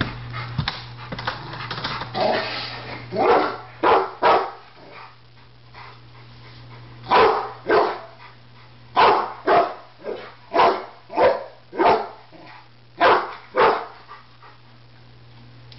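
Rottweiler barking in alarm at an unfamiliar object, a small kettle grill. About a dozen loud single barks, mostly in pairs, begin about three seconds in.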